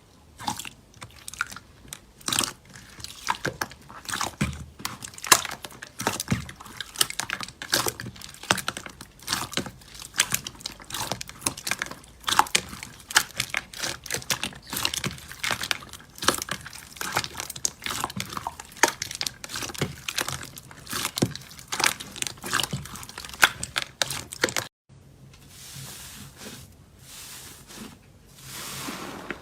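Slime being squeezed and kneaded by hand, giving a dense run of irregular crackling and popping clicks. A little before the end it cuts abruptly to softer, smoother squishing.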